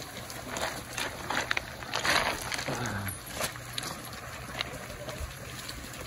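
Footsteps and dog paws on loose river cobbles: a run of irregular crunches and stone-on-stone clacks, busiest about two seconds in.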